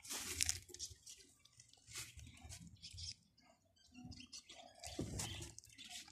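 Faint, irregular rustling and scratching with small crackles, as an animal's paws and nose stir dry soil and leaf litter.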